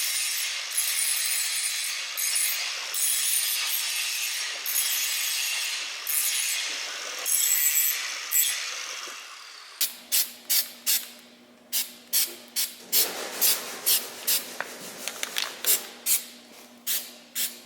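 Rough, uneven rubbing and scraping of a tool working a surface for about ten seconds. Then it stops abruptly and a series of sharp, irregular clicks follows over a faint low steady hum.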